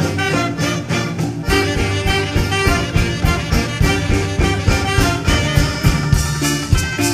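Cumbia music with a steady beat and a wind-instrument lead.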